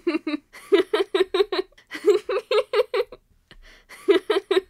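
A girl laughing in four bursts of quick, even 'ha' pulses, with short pauses between them.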